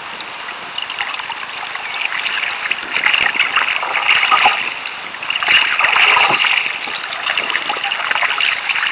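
Water splashing and rushing right at a kayak-mounted camera as the kayak moves along the river. Louder surges of splashing come about three, four and six seconds in.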